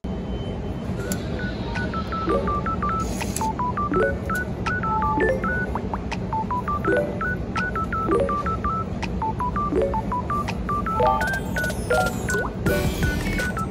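Short electronic beeps in quick falling runs, repeating over and over, with lower notes about once a second and a steady low hum underneath.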